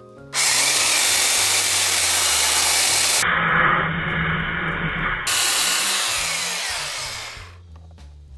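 Craftsman belt sander starting up about a third of a second in and running loud and steady with coarse 36-grit paper pressed against a plastic motorcycle windscreen, a dense grinding hiss. It dies away about seven and a half seconds in.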